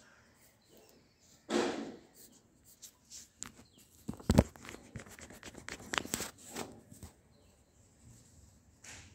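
Handling noise as a sheet of drawing paper and the camera are shifted: a paper rustle, then a sharp thump about four seconds in, followed by several short clicks and rustles.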